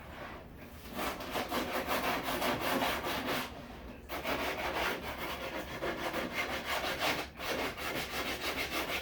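A hand tool worked on wood with quick rasping strokes, in three runs broken by short pauses about four and seven seconds in.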